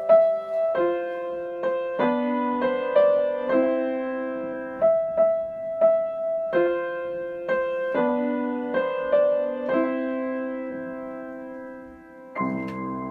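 Background piano music: a slow melody of struck notes over chords. Near the end the piano fades and a different held chord comes in.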